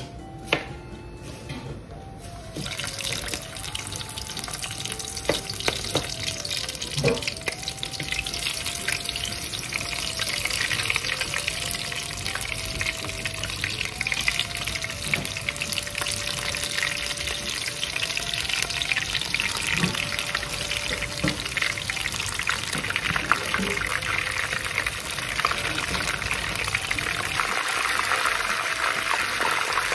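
Batter-coated shrimp deep-frying in hot oil: a dense crackling sizzle that starts about two and a half seconds in and grows louder as more shrimp go into the pan. A few light clicks, with a simple music melody underneath.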